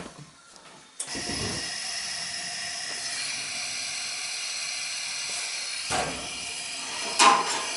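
Gas space heater's main burner lighting with a sudden start about a second in, then burning with a steady hiss, the heater working on its newly replaced thermocouple.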